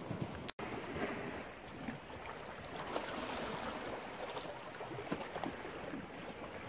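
A sharp click about half a second in, then small waves lapping and splashing around rocks in shallow sea water.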